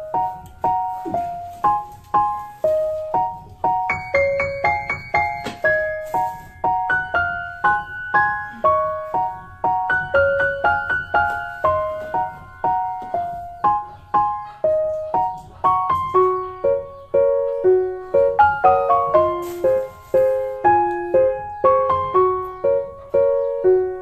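Background music: a gentle piano melody of short, evenly spaced notes.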